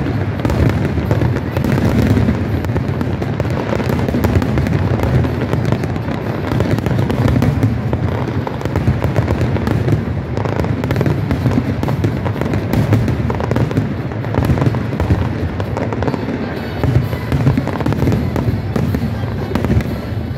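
Dense, unbroken barrage of fireworks going off, with overlapping booms and crackles and no pause between bursts.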